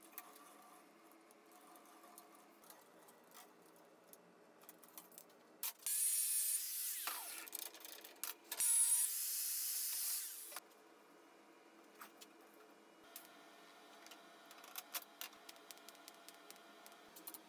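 A small handheld power tool worked on a flat steel bar in two short runs, each a couple of seconds of loud, high-pitched hissing, with the motor's pitch falling and rising in the first run. Before and after come light clicks and knocks of steel being handled.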